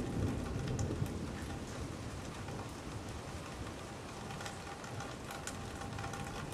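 Steady rain during a thunderstorm, with scattered close drops ticking. A low rumble of thunder dies away over the first couple of seconds.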